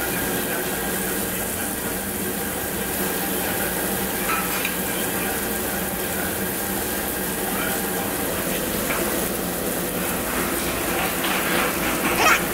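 Pork sizzling steadily on a tabletop barbecue grill, with a few brief eating and utensil noises. The loudest of these comes near the end.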